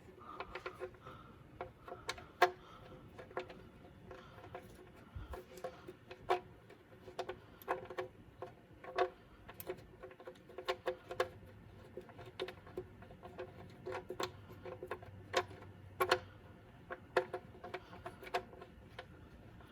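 Irregular sharp metallic clicks and clinks, roughly one or two a second, each with a short ring, as the oil drain plug with its new crush washer is refitted to the Audi Q7's oil pan.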